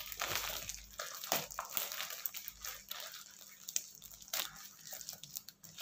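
Plastic packaging crinkling and tearing as a parcel is unwrapped by hand, in irregular crackles and rustles.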